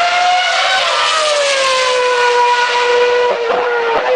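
Formula One car's 2.4-litre V8 engine running at very high revs, a loud whine whose pitch falls through the first two seconds as the car goes by and away, then holds steady.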